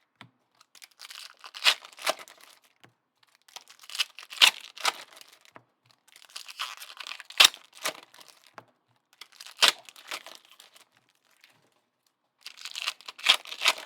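Foil trading card pack wrappers being torn open and crinkled, in about five bursts of crackling every two to three seconds.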